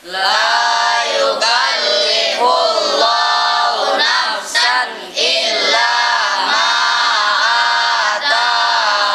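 A class of boys reciting an Arabic Quranic verse aloud in unison, in a sing-song chant, with one brief pause about halfway through.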